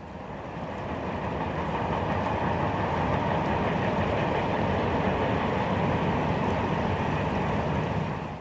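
Freight train rolling past, a steady rumble of wheels and wagons on the rails that swells over the first two seconds and cuts off abruptly at the end.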